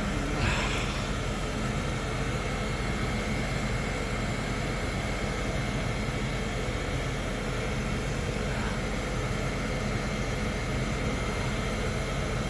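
Siemens Vectron electric locomotive running: a steady hum of fans and electrics with a thin high whine, and a short hiss about half a second in.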